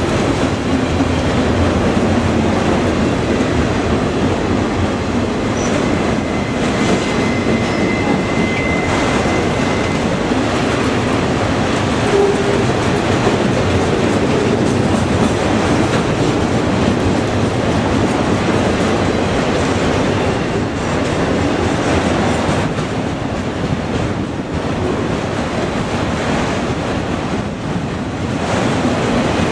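Union Pacific autorack freight cars rolling past at close range: a steady rumble and rattle of steel wheels on the rails. A thin high wheel squeal sounds for several seconds, starting about three seconds in.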